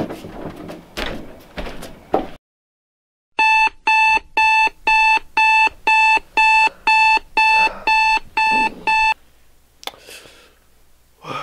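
Digital alarm clock beeping: short beeps at one steady pitch, about three a second, for close to six seconds before stopping abruptly. Before it, a few knocks and shuffles come as a man gets up from a wooden chair.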